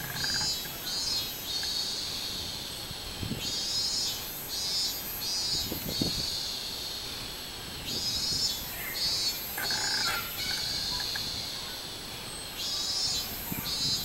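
Robust cicada (minmin-zemi, Hyalessa maculaticollis) singing: phrases of rapid pulsed 'min-min' notes, each running into a held buzz, repeating about every four to five seconds.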